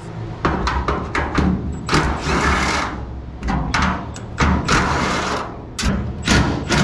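Cordless impact tool hammering in a series of short bursts, the longest about a second long, as it backs out the body bolts holding a 1971 Chevy K5 Blazer's bedside and inner fender.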